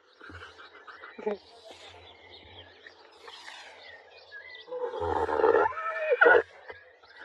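Horse vocalizing while its chin is scratched: a short sound about a second in, then a louder, longer one with a wavering pitch about five seconds in.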